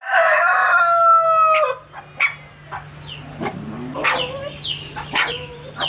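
A rooster crows once, a loud call ending on a long held note that drops in pitch as it ends, less than two seconds in. After it come short, high, falling yelps and whimpers from puppies, with a few sharp clicks.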